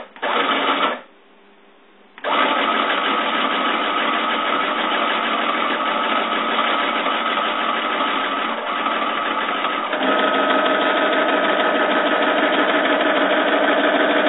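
Stepper motors of a home-built, 3D-printed PCB CNC machine driving its axes at high speed. Two short moves come at the start, then a pause of about a second. After that a long continuous run of whining stepping follows, and its tone changes about ten seconds in as the motion changes.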